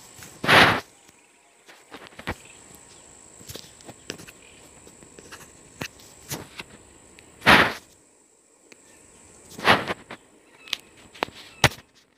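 Insects chirring steadily at a high pitch, broken three times by a short, loud burst of noise, with scattered small clicks between.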